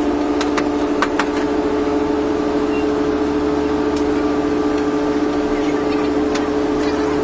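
Steady machine hum with two constant tones and a low rumble, with a few faint light clicks scattered through it.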